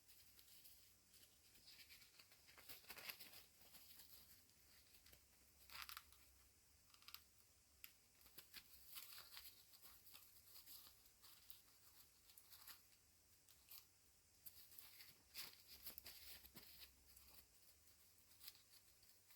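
Faint, irregular rustling and small clicks of a plastic action figure and its accessories being handled and fitted together.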